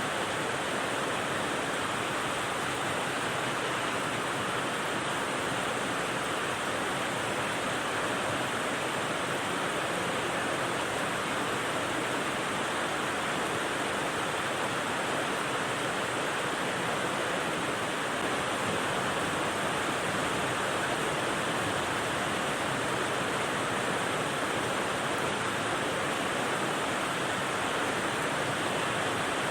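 White noise rain sound: a steady, even hiss like heavy rainfall, with no separate drops or changes.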